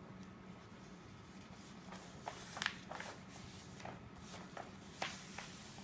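Large sheet of A0 plan paper rustling as it is handled and folded over, faint at first, then with a few sharp crackles of paper from about two seconds in.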